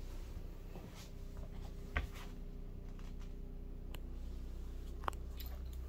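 Quiet room tone: a steady low hum with a few faint clicks and taps.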